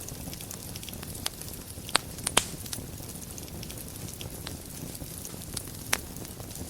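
Wood fire burning in a fireplace: a steady low rumble of flames with scattered crackles and a few sharp pops, the loudest about two seconds in and again near the end.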